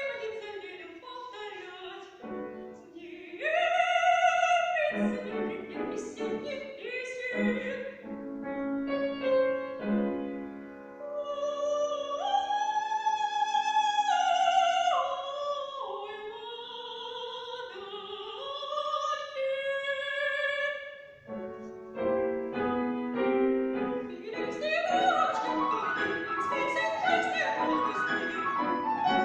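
A female classical singer singing in operatic style with piano accompaniment, with long held notes and slides between pitches. The piano part grows fuller near the end.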